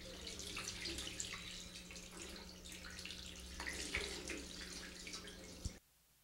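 Water running from a sink tap and splashing over hands being washed, with irregular small splashes and drips. It cuts off abruptly near the end.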